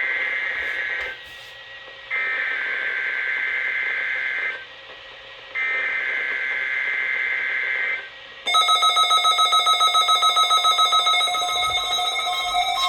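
Three bursts of Emergency Alert System digital header data (the SAME screech), each about three seconds long with a second's gap between them. About eight and a half seconds in, a loud pulsing multi-tone weather radio alarm starts.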